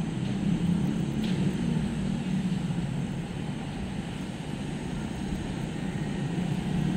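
A steady low mechanical drone, like a distant engine or city machinery, over an even background haze.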